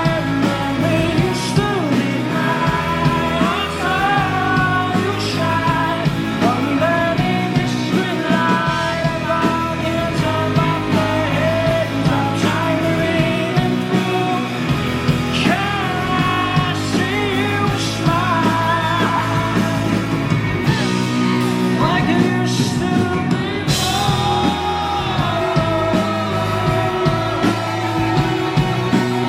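Live rock band playing a song with a lead singer.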